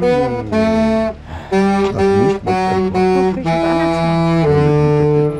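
Instrumental music on wind instruments with a saxophone-like tone: a slow melody of held notes over sustained chords, moving to a new note every half second to a second.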